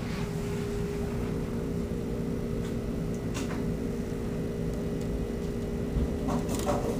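Steady mechanical hum of an aquarium filter motor, with a few faint clicks and a small knock near the end.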